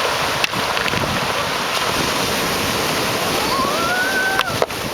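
Steady rush of wind and breaking water, with wind buffeting the microphone. A short rising tone comes through about three and a half seconds in.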